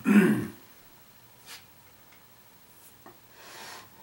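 A man's short voiced sound falling in pitch right at the start, then near quiet with a couple of faint ticks and a soft breathy rustle near the end.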